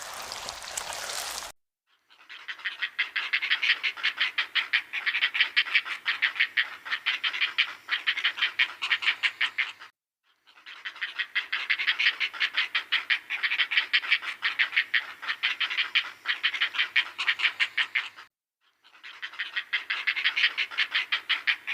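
An animal sound: a fast run of short, evenly spaced pulses, played three times with a short silence between each run.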